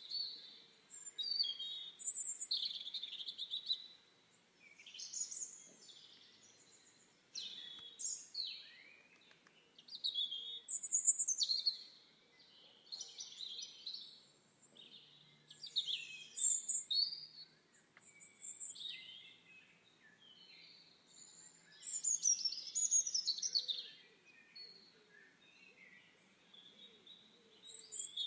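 Songbirds singing: short, varied, high chirping phrases, one after another every second or few, over a faint steady background.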